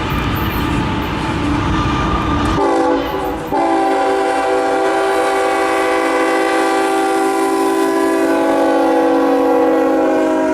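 A train passing with a loud rumble. About two and a half seconds in, a locomotive's multi-chime air horn sounds: a short blast, then a long, held blast of several tones at once.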